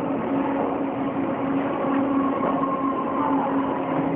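Steady machine hum: an even mechanical noise with a constant low droning tone and fainter higher tones, unchanged throughout.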